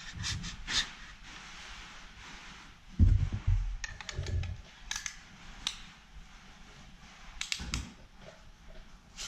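Band-type piston ring compressor being ratcheted tight around a piston with its key: scattered sharp metallic clicks, with a heavier thump of handling about three seconds in.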